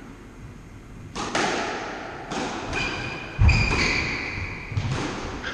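Squash rally starting about a second in: sharp hits of the ball off rackets and walls, heavy thuds, and shoes squeaking on the wooden court floor.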